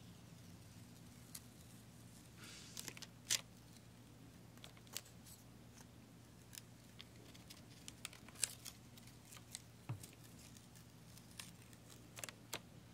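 Sticky protective film being peeled off an adhesive sand art board with fingernails and a wooden stick: scattered faint crackles and sharp sticky ticks, the sharpest about three and eight and a half seconds in.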